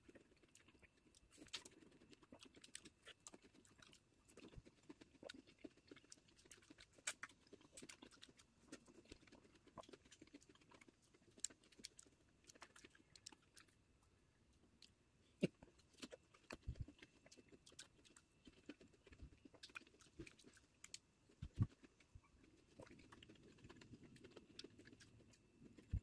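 Quiet eating of sliced star fruit: soft chewing with scattered small clicks and taps, and a few sharper knocks in the second half.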